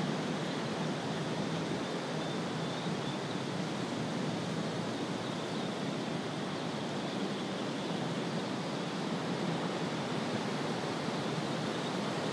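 Wind blowing steadily through tall grass and cattails: an even hiss with no separate events.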